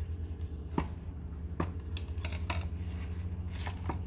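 Hands handling and rubbing seasoning into a whole raw mojarra on a plate: scattered light taps and clicks, over a steady low hum.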